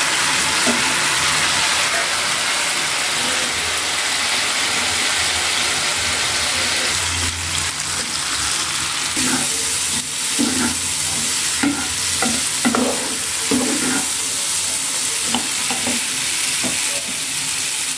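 Mustard-paste masala with potato pieces sizzling and bubbling in oil in a pan while being stirred with a spatula, with short scrapes of the spatula against the pan several times in the second half. The paste is being sautéed until the oil separates from it.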